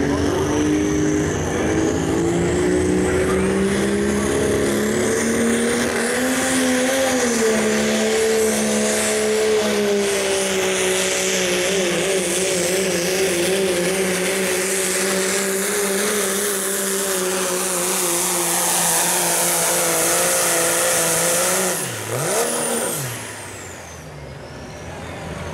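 Turbocharged Cummins diesel in a Dodge Ram pulling truck running flat out under the load of the sled, its pitch climbing slowly and holding, with a high turbo whistle over it. Near the end the engine drops off, is blipped once, and the turbo whistle winds down as the pull ends.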